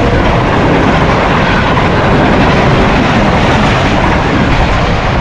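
Pakistan Railways express train passing close by at speed: a loud, steady rush of wheels on rails and rolling stock.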